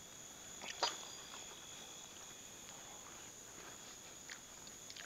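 Crickets trilling steadily in a high, even tone, with one sharp click about a second in and a couple of faint ticks near the end.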